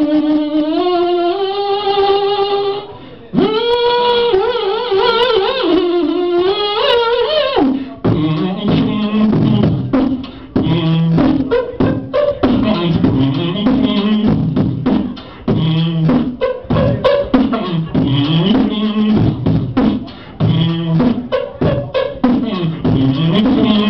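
Beatboxer performing into a microphone: first held vocal notes that slide up and down in pitch, then, from about eight seconds in, a steady beatbox rhythm of mouth-made drum hits over a repeating low vocal bass line.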